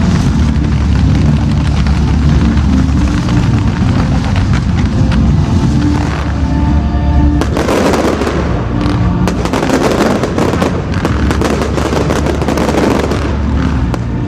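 Fireworks display with music playing: low booms and bass at first, then from about halfway a dense, continuous crackling of firework bursts.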